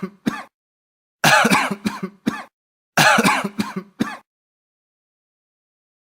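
A person clearing their throat and coughing in two short bouts, each made of several rough bursts.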